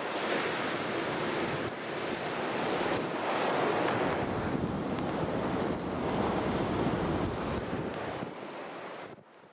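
Ocean surf breaking, a dense rushing that rises and falls, with wind buffeting the microphone. It fades out just before the end.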